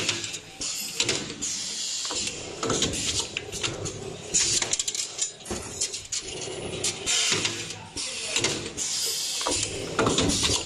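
Servo wire bending and welding machine at work: irregular metallic clacks and knocks, with short bursts of hissing now and then.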